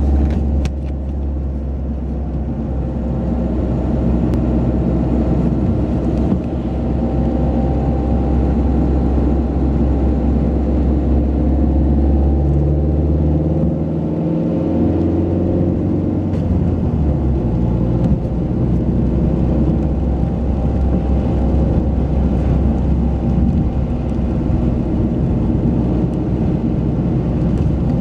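Car engine running steadily under way with road noise from the tyres, heard from inside the car. The engine note rises about halfway through and drops back a few seconds later.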